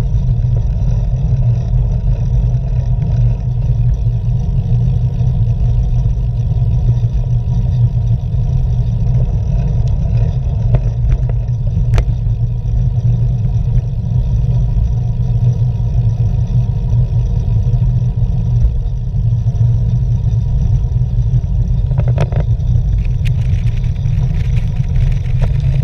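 Steady wind rumble on a bike-mounted camera's microphone while riding a road bicycle, with tyre and road noise underneath. A single sharp click about halfway through.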